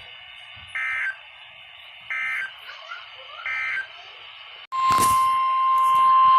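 Weather radio receiver with faint steady hiss and three short screechy EAS data-burst squawks about 1.4 s apart, the end-of-message code closing a severe thunderstorm warning. After an abrupt break, NOAA Weather Radio's steady 1050 Hz warning alarm tone starts about two-thirds of the way in, much louder than the bursts.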